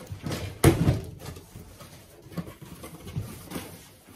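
A cardboard shipping box being opened and unpacked by hand: a sharp knock just under a second in, then scattered rustling and handling noises.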